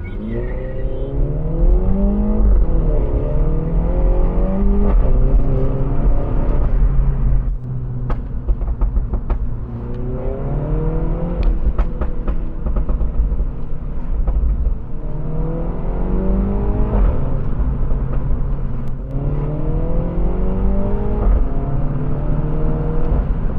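Mini Cooper S John Cooper Works' 2-litre inline-four engine and loud sport exhaust, valves open, under hard acceleration. The engine pitch climbs and falls back at each upshift, over several pulls, with a few sharp pops when the throttle closes.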